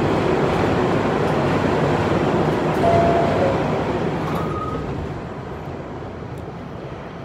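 Running noise inside a New York City subway car: a dense, loud rumble and clatter. Two brief squeals cut through about three and four and a half seconds in, and after that the noise dies down steadily.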